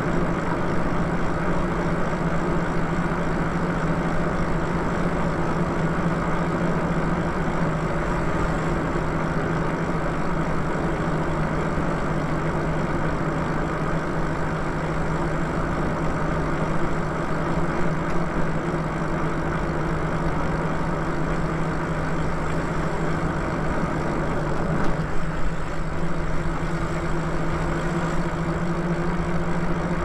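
Steady riding noise from a Lyric Cycles e-bike cruising on pavement: a constant low hum under an even rush of wind and tyre noise.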